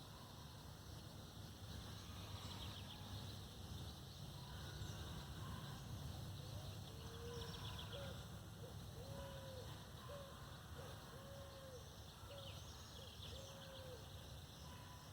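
Forest birds calling: one bird repeats a low, arched whistled note about six times, about once a second, and short high trills come from other birds. Under them runs a steady low rumble.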